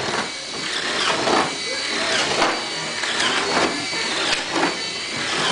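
Cordless drill boring holes into a wooden board, its motor whine dipping again and again as the bit bites.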